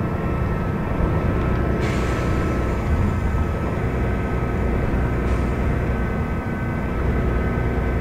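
Volvo B12BLE city bus's diesel engine and driveline running under way, heard from inside the cabin: a steady low rumble with a constant high whine over it. This is the engine sound the uploader calls odd. A short hiss cuts in about two seconds in.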